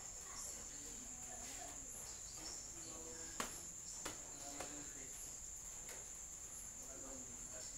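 Insects trilling: one steady, continuous high-pitched note, with faint voices in the background and two sharp light clicks near the middle.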